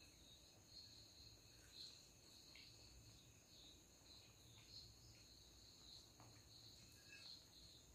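Near silence with a faint, high-pitched insect chirring, crickets by the sound, that pulses about once a second over a steady thin whine. A few faint soft ticks and clicks come from hands eating off plates.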